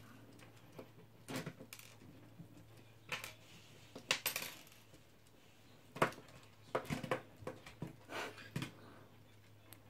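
Lego Technic plastic parts clicking and clattering in the hands as a stiff part is worked out of a wheel hub assembly: irregular light clicks, some in quick little clusters.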